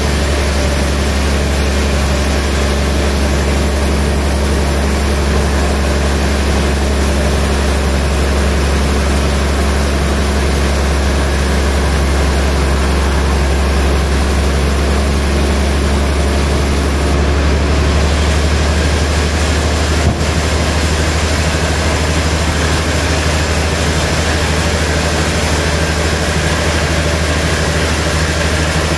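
Large log band saw running with a steady low hum and an even whirring noise as its blade rips a big log into slabs. A single sharp click sounds about twenty seconds in.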